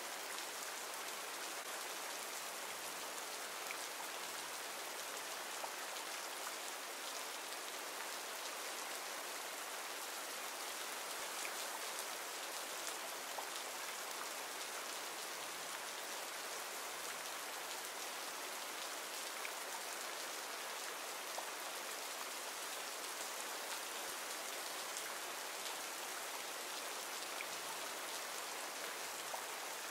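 Recorded rain ambience: steady rainfall, a continuous even hiss with a few louder drops now and then.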